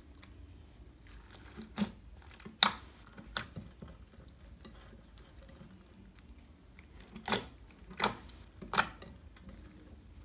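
Clear glitter slime loaded with beads and foam pieces being stretched and squished by hand, with a soft squishing under about six sharp pops: three about two to three seconds in and three more near the end.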